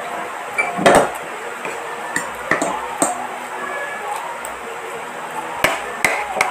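Metal spoon and fork clinking and scraping against a dinner plate while eating rice, in scattered sharp clicks with short ringing tones. The loudest clink comes about a second in, and a cluster follows near the end.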